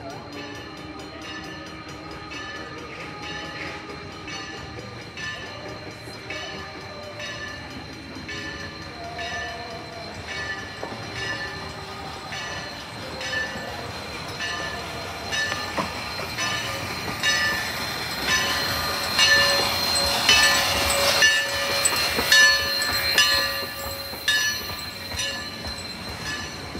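Narrow-gauge steam locomotive No. 152 drawing into a station with its bell ringing steadily, about one and a half strokes a second. The running sound of the locomotive and its cars grows louder as it comes alongside, about two-thirds of the way in.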